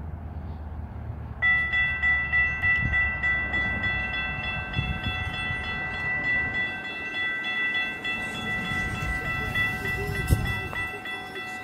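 Road traffic rumble, then about a second and a half in the crossing's Safetran Type 3 electronic bells start ringing, a rapid steady ding, warning that the crossing has activated for an approaching train. A single sharp knock near the end.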